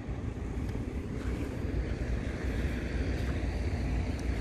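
Wind buffeting the microphone outdoors: a steady low rumble with a faint hiss above it.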